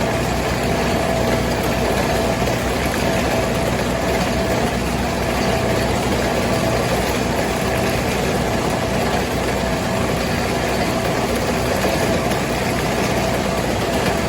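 Tractor engine running at a steady speed, with a steady whine above the engine noise.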